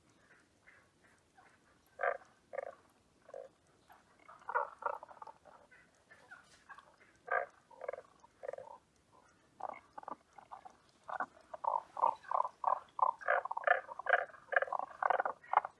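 Tago's brown frog calling: short, croaking notes, scattered at first and coming in twos and small clusters, then running together into a fast, dense series for the last few seconds.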